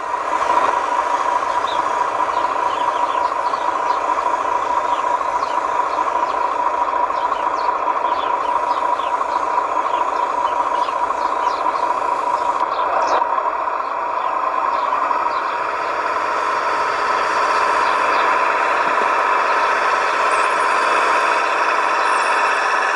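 Radio-controlled model construction machine running: a steady mechanical whine and hum, centred on one strong tone with light scattered ticks, shifting slightly in pitch about two-thirds of the way through.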